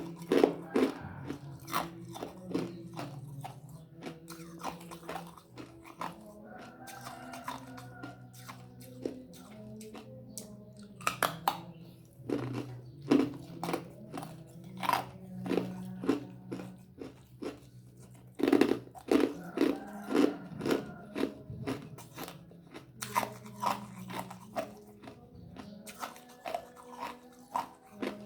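Ice cubes being bitten and chewed close to the microphone: runs of sharp, crackling crunches, bite after bite, with short pauses between.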